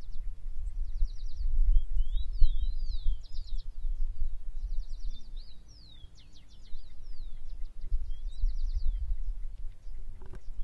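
Several small birds chirping and trilling, with quick rising and falling whistled notes, over an uneven low rumble.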